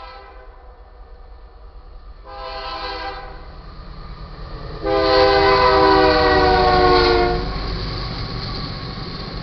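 Chord horn of BNSF 5705, a GE AC44CW diesel-electric locomotive, sounding a short blast and then a long, loud blast as it nears the grade crossing: the close of the long-long-short-long crossing signal. A steady low rumble of the locomotives and train follows as they pass.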